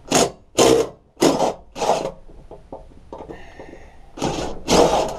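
DeWalt cordless impact driver hammering at a lawn mower's rusty blade bolt, undoing it: four short bursts in the first two seconds, then a longer run of about a second near the end.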